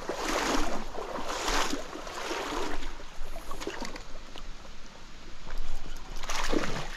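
Trout stream water flowing, with sloshing splashes that swell and fade about once a second in the first few seconds and again near the end.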